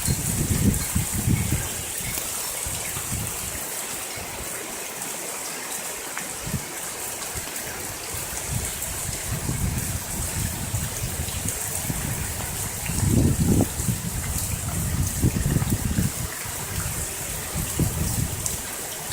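Rainwater runoff flowing and trickling across the ground, a steady rush of water. Uneven low rumbles come and go, strongest about 13 seconds in.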